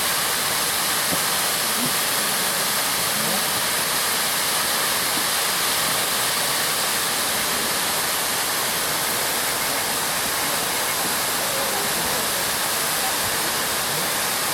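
Waterfall pouring down: a steady, unbroken rush of falling water, heavy on hiss.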